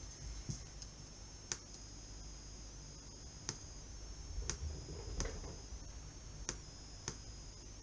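Sharp clicks, about six spread over the seconds, as buttons on a Dyson hot and cool fan's display board are pressed. Under them runs a steady, faint, high-pitched whine that wavers slightly, the oscillation from the freshly repaired, mains-powered control board.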